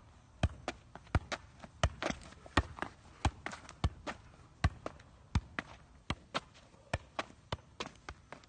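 A small soccer ball being juggled on the feet: a sharp kick of shoe on ball about every 0.7 seconds, with lighter taps of sneakers hopping on the asphalt between the kicks.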